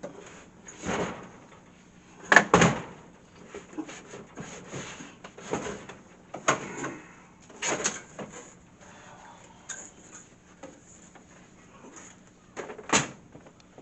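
AMS vending machine's modular refrigeration unit being pulled out of its cabinet: intermittent scraping and clunks, the loudest a pair of knocks about two and a half seconds in and another knock near the end.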